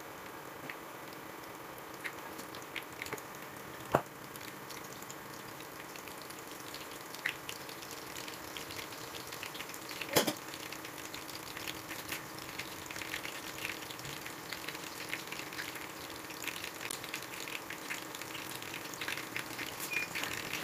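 Tilapia fillets frying in hot oil in a nonstick pan: a steady sizzle with scattered crackling pops that grow busier and louder toward the end. Two sharp knocks, about four and ten seconds in.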